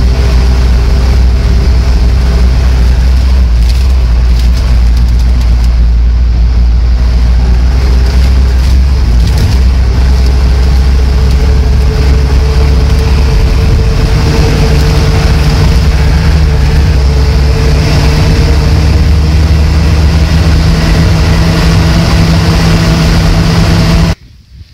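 A car's engine running steadily under load, heard from inside the cabin while driving over a rutted dirt track. The engine note shifts about halfway through, then the sound cuts off abruptly near the end.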